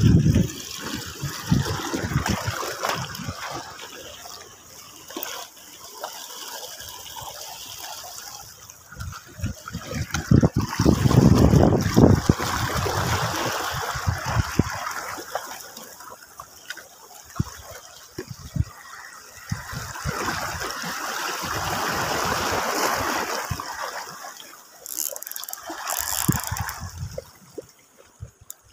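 Small sea waves washing and splashing over shoreline rocks, rising and falling, with a louder surge about a third of the way in.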